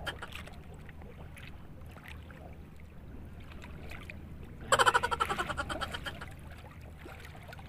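A faint, steady wash of sea water and wind around a small pedal boat. About five seconds in, a loud burst of rapid pulsing lasts about a second.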